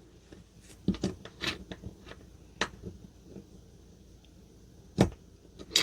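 Scattered small metal clicks and scrapes of a screwdriver prying at a circlip on a lock, irregularly spaced, the sharpest about five seconds in.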